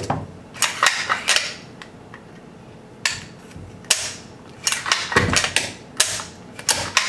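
Sharp metallic clicks and clacks, spaced irregularly, from handling the reassembled CZ 805 BREN rifle, with a quick run of them about five seconds in.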